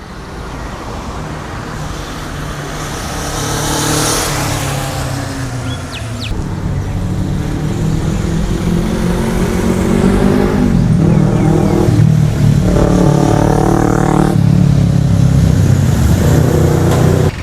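Kawasaki Ninja 400R (ER-4f) 399 cc parallel-twin running and revving through its exhaust, its pitch rising and falling as the throttle is worked. It gets steadily louder, and is loudest in the second half.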